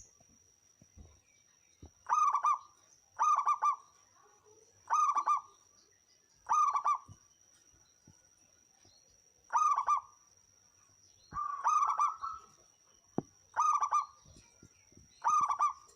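Zebra dove (perkutut) cooing: eight short, rolling coo phrases at irregular intervals of one to three seconds.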